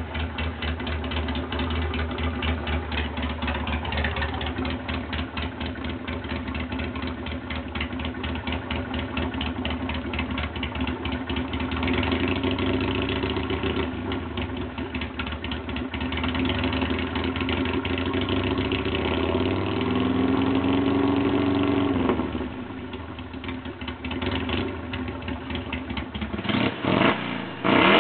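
Harley-Davidson Sportster XL883C's air-cooled V-twin idling, revved briefly a few times, with quick sharp revs near the end.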